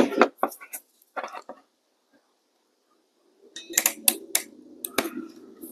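Sharp metallic clicks from a ratcheting wire crimper as a heat-shrink butt connector is set into its jaws: a few light clicks in the first second and a half, a pause, then a quick run of clicks over the last two seconds.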